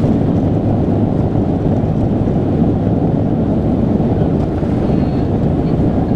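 Steady, loud cabin noise of a Boeing 737's jet engines and airflow, heard from inside the passenger cabin as the airliner rolls along the runway.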